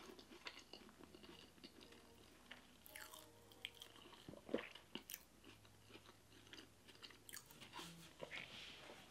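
Faint close-up chewing with soft wet mouth smacks and a few sharper clicks scattered through, as a person eats a mouthful of food by hand.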